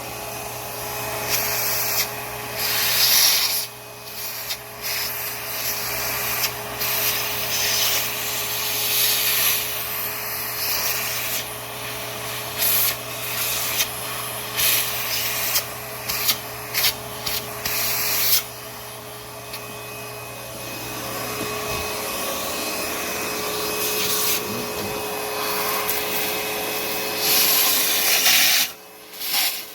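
A vacuum cleaner running, sucking dirt from around the top of a riding lawn mower's battery; the rushing suction noise swells and dips as the nozzle moves, over a steady motor hum. It drops away shortly before the end.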